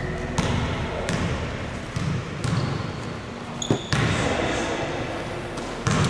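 Basketball bouncing on a hardwood gym floor, a handful of separate thumps at uneven intervals, with a short high squeak about halfway through.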